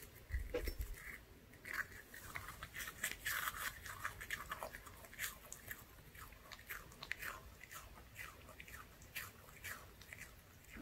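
Pomeranian biting and chewing a crispy green-onion pancake dog treat, a fast, irregular run of small crunches.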